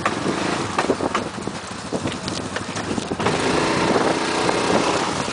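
Quad bike (ATV) engine running, with irregular knocking and clattering for the first few seconds, then a steadier, louder engine note from about three seconds in.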